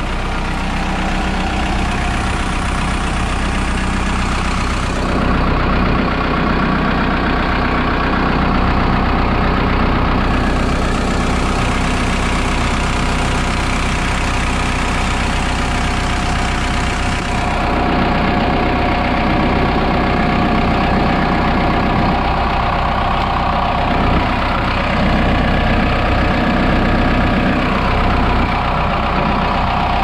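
Case 580 Super L backhoe's four-cylinder diesel engine idling steadily, heard close up. Its tone shifts about five seconds in and again near eighteen seconds.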